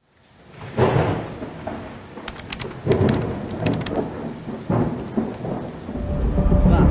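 Thunder rumbling over steady rain, fading in, with rolls about a second, three seconds and nearly five seconds in and sharp crackles between them. A low swell builds near the end.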